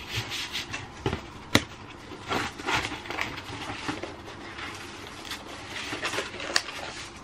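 Cardboard and paper handling: a small cardboard mailer box being closed, then a flat cardboard box blank handled and folded, with scattered taps and rustles and one sharp tap about a second and a half in.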